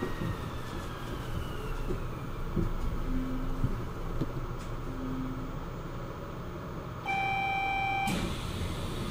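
Kobe Port Liner's rubber-tyred automated train slowing to a stop at a station, its motor whine falling in pitch over the first two seconds. About seven seconds in, a loud electronic beep sounds for a second and cuts off with a thump.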